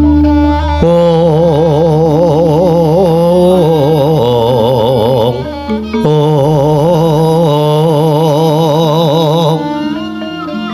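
Javanese gamelan music for a wayang kulit, with the dalang singing a suluk: two long, heavily ornamented wavering sung phrases over sustained instrumental tones, breaking briefly about five seconds in. A deep low hum sounds at the start before the first phrase.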